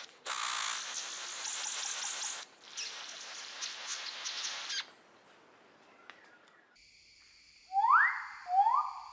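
A hissing noise with light crackles cuts off about halfway through. Near the end come two loud bird calls, each a rising whistle.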